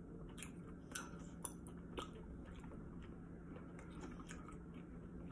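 A person chewing a mouthful of tteokbokki, the chewy Korean rice cakes in a cheese sauce, faint and close to the microphone. Several soft, wet mouth clicks come in the first two seconds, with a low steady hum underneath.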